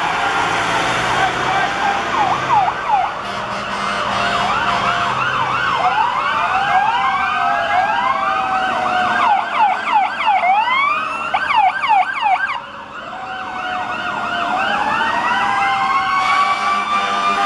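Several emergency vehicle sirens sounding at once as fire apparatus pull out, mostly rapid yelp sweeps overlapping one another. A lower tone falls slowly in pitch through the first two thirds, and a slow rising wail starts about three quarters of the way in.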